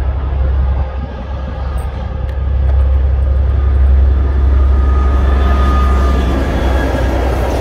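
A train running by on the line, a steady low rumble that grows louder a couple of seconds in, with a thin high squeal for about a second near the middle.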